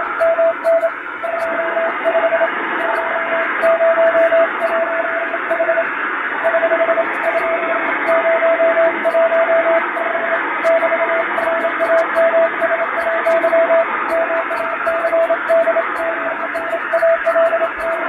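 Morse code (CW) on shortwave: a single steady tone keyed in dots and dashes, spelling out an English-text ship radiotelegram with the ship's name and call sign, a date and a hotel address. The signal sits in a bed of band-limited receiver hiss, and the noise and fading are added to simulate real shortwave reception.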